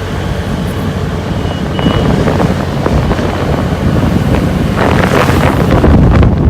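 Heavy wind buffeting on the microphone of a moving two-wheeler, with engine and road noise underneath.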